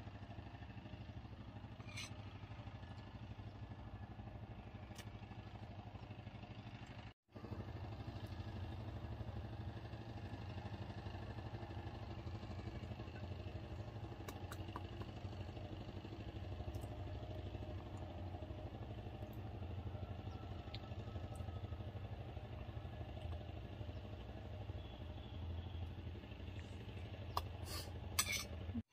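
A steady low mechanical hum, like a motor running, broken off briefly about seven seconds in, with a few light clicks near the end.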